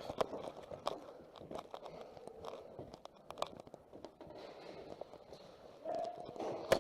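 Footsteps crunching and scuffing on a gritty floor at an irregular pace, with a single sharp click near the end.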